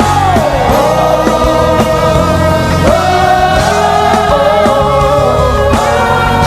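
Live worship music: a singing voice holding long notes over a full band with guitar and bass.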